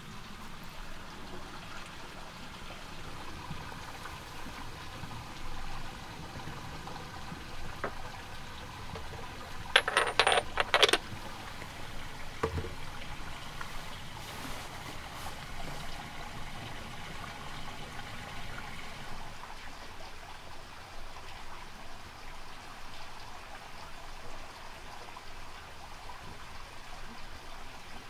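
A quick run of sharp, ringing clinks of hard objects knocked together about ten seconds in, over a steady soft hiss.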